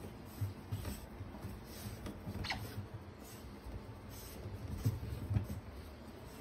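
Faint patter and soft thumps of otters and a kitten moving on wooden stairs and floor, with one brief, thin high squeak about two and a half seconds in.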